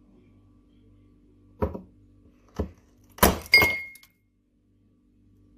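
A knife blade striking frozen ice in a plastic ice-cube tray: four sharp knocks about a second apart. The last one clinks with a short glassy ring as a chunk of ice lands in a drinking glass, over a faint steady hum.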